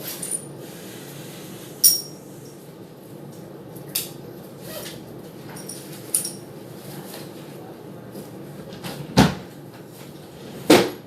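Small objects being handled: several sharp clicks, some with a brief metallic ring, then two louder knocks near the end.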